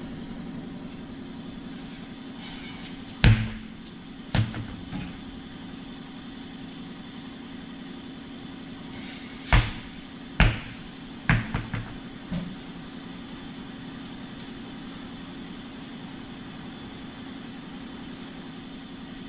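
Sharp knocks and clanks of car wheels and tools being handled: two single knocks, then a quicker run of four or five a few seconds later, over a steady hum.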